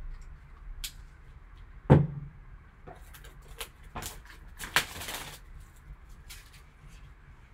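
Plastic shrink wrap being slit and pulled off a sealed trading-card box, crinkling in short bursts. A sharp knock about two seconds in is the loudest sound.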